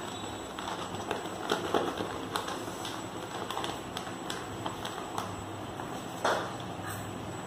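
Newspaper being folded and handled, with irregular rustles and crinkles of the paper, loudest about a second and a half in and again about six seconds in. A steady low hum runs underneath.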